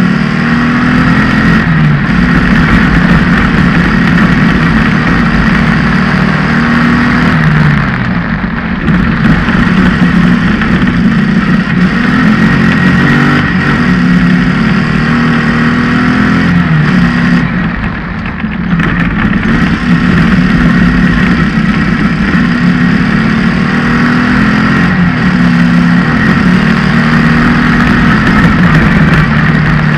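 Off-road racing buggy's engine running hard at close range, its pitch climbing and dropping in steps as it goes through the gears. It eases off briefly about eight seconds in and again around eighteen seconds.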